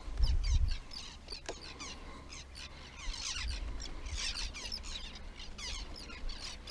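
Birds chirping over and over in short, quick downward-sweeping calls. A low rumble on the microphone in the first second is the loudest part.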